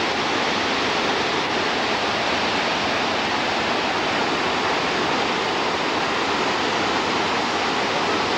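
Waterfall rushing steadily: a continuous, loud hiss of falling water.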